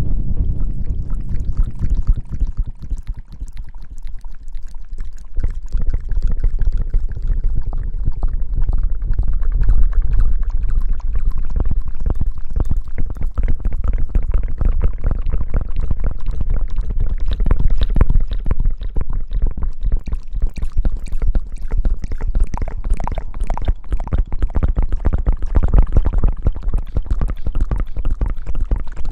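Close-miked ASMR hair-washing sounds: continuous wet, crackling rubbing and lathering right against the microphone, with a deep rumble underneath, briefly thinner a few seconds in.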